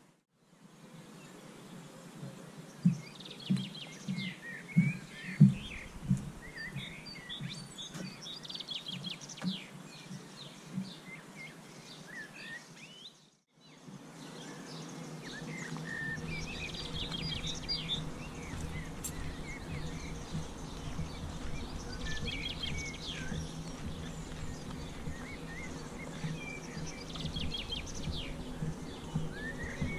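Songbirds chirping and singing in short, repeated phrases, with several loud low thumps in the first few seconds. The sound drops out briefly near the middle; after that a steady low hum runs under the birdsong.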